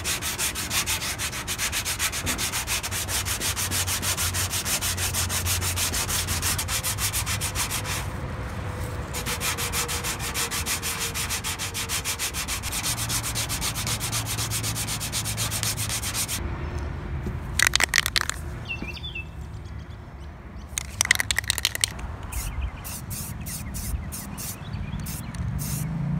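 Hand sanding of cured body filler on a car fender with 320-grit sandpaper wrapped around a sponge: rapid back-and-forth scraping strokes for the first two thirds. After that it turns quieter and intermittent, with two short, louder bursts and a run of quick ticks near the end.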